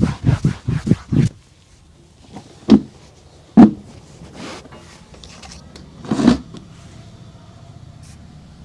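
Rapid, even rubbing strokes on a boot, about five a second, that stop about a second in, followed by three separate sharp knocks.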